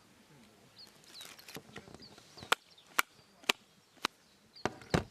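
A run of sharp chopping knocks of a blade striking wood, about two a second, starting about halfway through.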